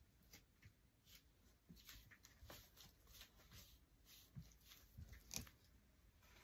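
Near silence with scattered faint rustles and small taps from a person moving about, the sharpest tick about five seconds in.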